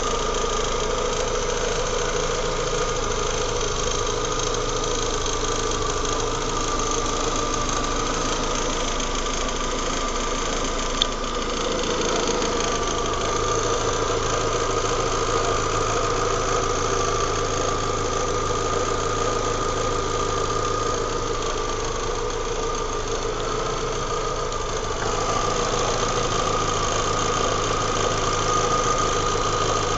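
Opel Vectra engine running steadily at idle with a rattle, with one sharp click about eleven seconds in.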